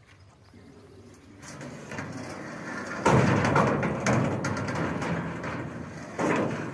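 Scraping and knocking of harvester parts being worked loose. It builds slowly, turns loud about three seconds in, and comes again briefly near the end.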